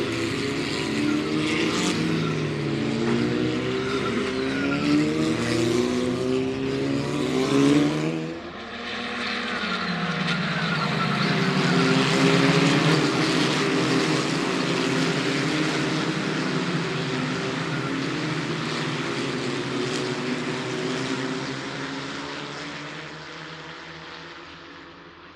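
Race car engines at speed on a circuit, their pitch climbing and dropping through gear changes. About eight seconds in the sound breaks off abruptly and another car's engine is heard going past, fading away near the end.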